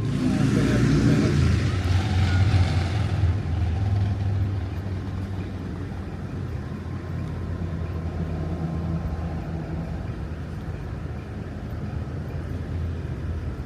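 A motor running steadily with a low hum, with a louder rushing noise over it in the first few seconds that then fades.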